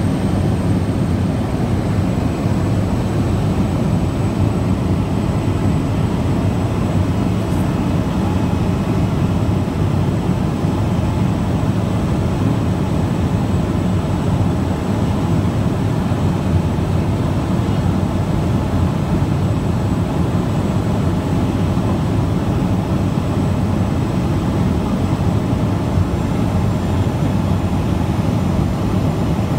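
Floatplane's engine and propeller droning steadily, heard from inside the cabin in flight.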